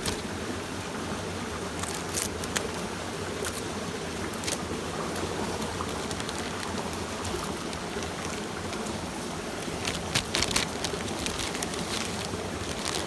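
Mountain stream water running steadily, with a few sharp clicks about two seconds in and again about ten seconds in.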